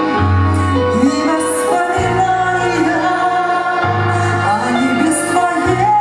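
A woman singing sustained, gliding notes into a handheld microphone over an instrumental accompaniment with a bass line that changes note every couple of seconds.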